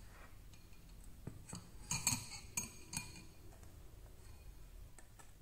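Kitchenware clinking as a stainless steel mesh strainer and a ceramic bowl are set down and knocked together. There are about five sharp clinks, each with a brief high ring, from about one to three seconds in.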